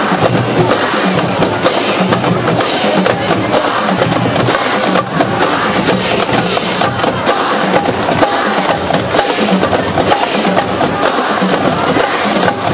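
Massed marching band playing: brass, with sousaphones, over a drumline, with sharp drum hits coming thick and steady.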